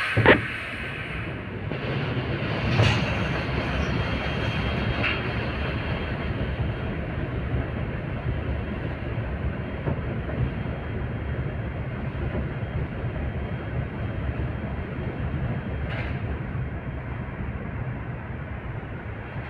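LVS-86K articulated tram running along its track, heard through an open window: a steady rumble of wheels on rails, with a sharp click just after the start and another about three seconds in.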